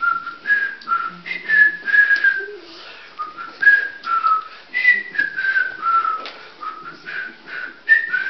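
A person whistling a tune: a string of short held notes, each about half a second, stepping up and down in pitch.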